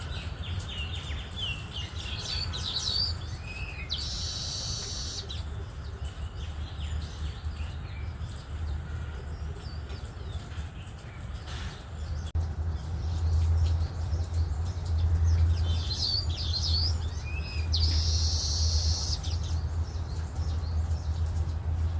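Baya weavers chirping and chattering, with two loud wheezy chattering songs about four seconds in and near the end. A steady low rumble runs underneath, growing louder about halfway through.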